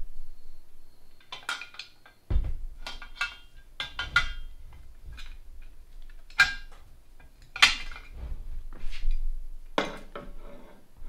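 A string of separate metallic clinks and clanks, several with a short ringing tone, from tools and steel parts as a motorcycle's swingarm pivot axle is worked out of the frame.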